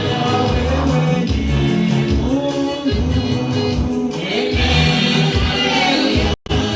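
Gospel praise-and-worship music: a choir singing over a band with a strong bass line. The sound cuts out for an instant near the end.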